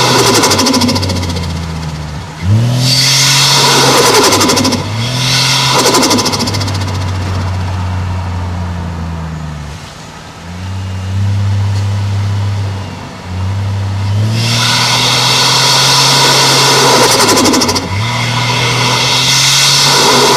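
Toyota 1JZ-GTE turbocharged 2.5-litre straight-six engine and exhaust under hard acceleration. The revs climb and drop sharply at gear changes several times, and wind down slowly once in the middle before pulling again.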